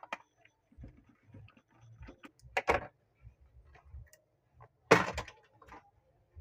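Clicks and knocks of a laptop's back cover being prised off and handled, with two louder knocks about two and a half and five seconds in.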